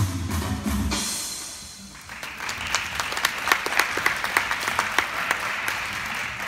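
Routine music with a steady beat ends about a second in, then an audience applauds, with many sharp individual claps.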